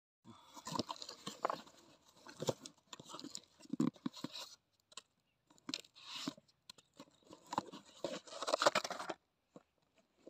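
Cardboard parcel being torn open by hand: packing tape tearing and cardboard flaps scraping and crinkling, in irregular bursts with short pauses between them.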